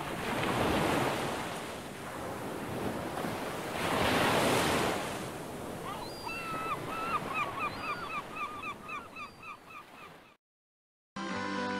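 Surf washing in, swelling twice, then from about six seconds a bird giving a rapid series of short cries that fades away. After a brief silence, music starts near the end.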